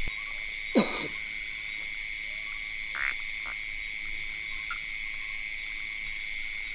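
Night-time rainforest chorus: a steady high insect drone with scattered frog calls. One loud call about a second in falls sharply in pitch.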